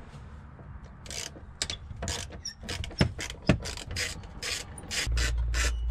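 Socket ratchet clicking in short, irregular runs as it undoes the 8 mm bolts on a fuel pump access cover. A low steady hum comes in near the end.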